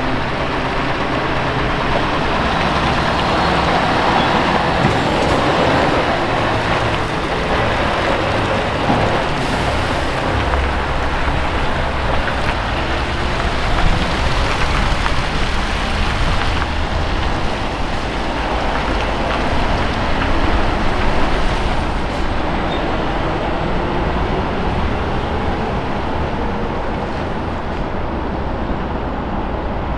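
Scania V8 truck engine pulling away with an empty flatbed trailer and accelerating, its note rising and falling several times as it works through the gears and round a turn.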